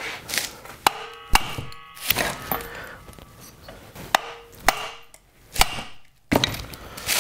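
A hammer strikes the end of a Honda mower engine's crankshaft, about seven sharp blows at irregular spacing, several of them leaving a brief metallic ring. The blows are knocking the tight flywheel loose from the shaft.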